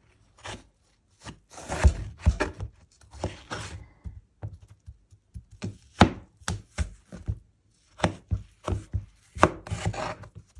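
Knife slicing peeled eggplant into strips on a wooden cutting board: irregular strokes and taps of the blade through the flesh onto the board, with a pause of about a second and a half midway.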